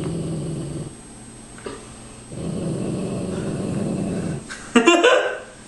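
A pet dog growling low and long, twice, guarding her Christmas gift as a warning to the man reaching for it. Near the end comes a short, louder burst of a man's laughter.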